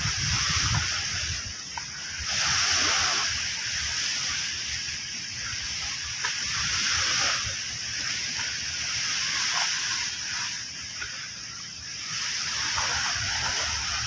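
Sea waves washing onto a shore, a steady rush of water that swells and recedes every few seconds.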